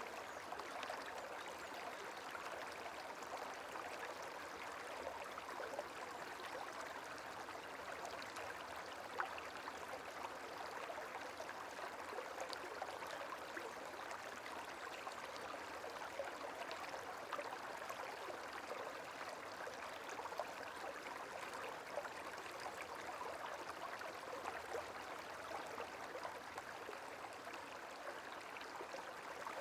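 Gentle running water: a steady trickling, babbling flow with small drips and splashes scattered through it.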